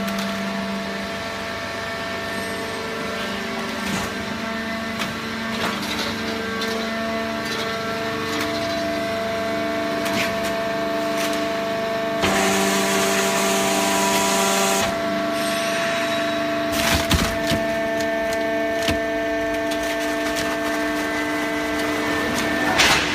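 Hydraulic cardboard baler running: a steady hum with several constant tones, and the crackling and snapping of cardboard as it is compressed. About twelve seconds in there is a hissing burst lasting two to three seconds, and a few sharp snaps follow shortly after.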